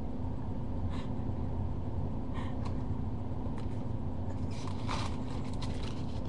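Steady low hum and rumble of a webcam's built-in microphone in a quiet room, with a few faint rustles and clicks of hair and hands moving close to it.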